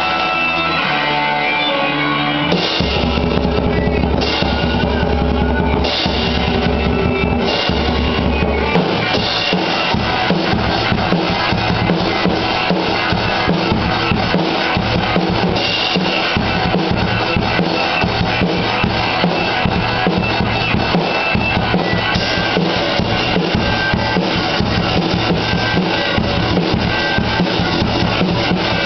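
Acoustic drum kit played with sticks, a steady rock beat on snare, toms, bass drum and cymbals, over a recorded rock song with guitar and bass.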